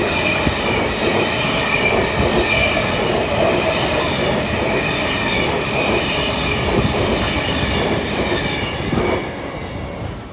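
Sydney electric suburban train running on the track: the rumble of the wheels with a steady high-pitched squeal over it, dying down about nine seconds in.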